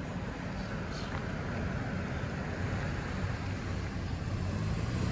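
A fire truck's engine rumbles as it approaches, the sound growing steadily louder.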